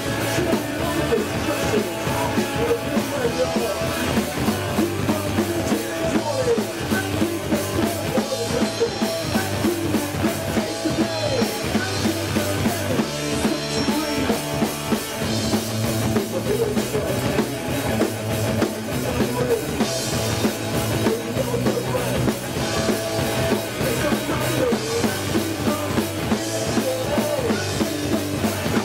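Rock band playing live: a drum kit hammering a steady beat over electric guitar and bass guitar.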